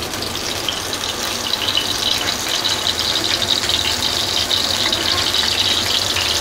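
Beef-mince chapli kabab patty frying in hot oil on a tawa: a steady sizzle that grows slowly louder as the oil bubbles up around it.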